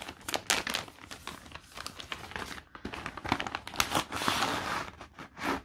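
Paper sheets and a clear plastic packet crinkling and rustling as they are handled, a run of irregular crackles with a denser stretch about four seconds in.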